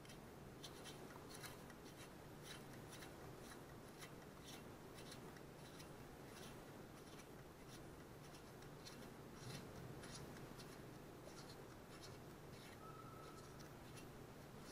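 Faint, scattered small clicks and scrapes of a Honda GXV160's rocker-arm nuts being turned by hand onto the rocker studs, run finger tight, over a low steady hum.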